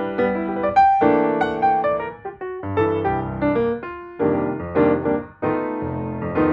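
Piano music: a stream of quick notes and chords, each struck note dying away.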